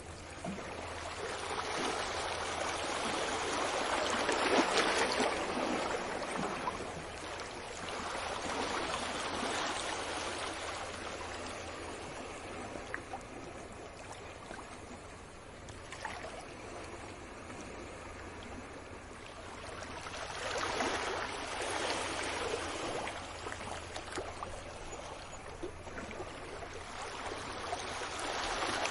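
Sea waves washing onto a beach, a rushing surf noise that swells and fades every several seconds and is loudest about five seconds in.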